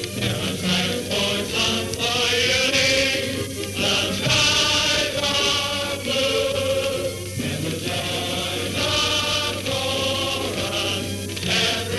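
A chorus of men's and women's voices singing together in held, sustained notes, as recorded on a 1920s–early 1930s sound-film soundtrack.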